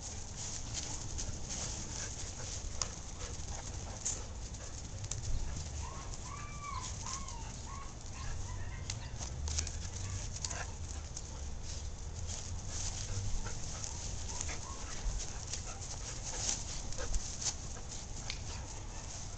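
German shorthaired pointer puppy and adult dogs playing on grass: scattered clicks and scuffling, with a quick run of about four short, high whines around six seconds in.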